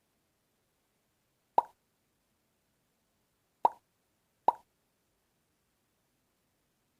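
Three short, sharp clicks, the second and third close together.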